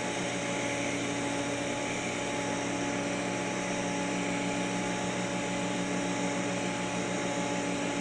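TIG welding of stainless steel tubing turning on a pipe positioner: a steady buzzing hum of several tones over a constant hiss, unbroken while the arc runs.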